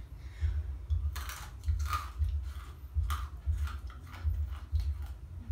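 Someone chewing a crunchy snack: scattered crisp crunches over a low hum that pulses two or three times a second.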